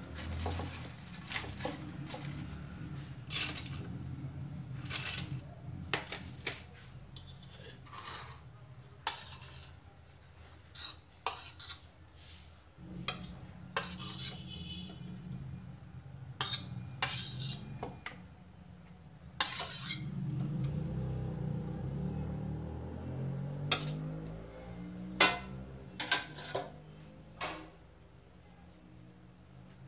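A metal spoon clinking and scraping against a steel plate and small plastic lunch-box containers as food is spooned in, giving scattered sharp clinks at irregular intervals.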